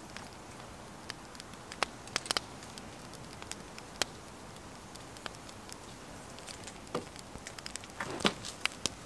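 Scattered sharp clicks and taps of small gear being handled, irregular and a few seconds apart, over a steady outdoor background hiss.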